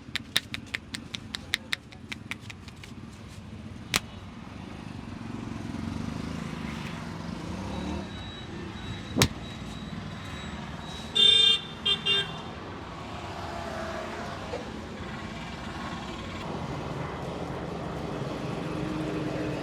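Street traffic rising in the background, with a vehicle horn tooting a few short times about eleven seconds in. At the start, a fast run of sharp hand slaps from the head massage fades away, and two single sharp snaps come later.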